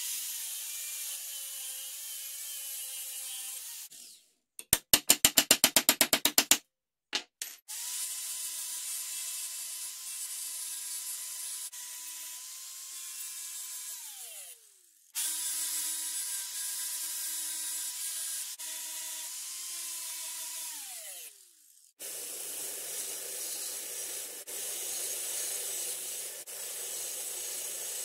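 Angle grinder cutting and grinding hard steel, its motor whining steadily over a hiss of abrasion in three runs, the later two winding down to a stop. About five seconds in comes a quick string of sharp taps. Near the end a belt sander grinds the steel with a rough hiss and no whine.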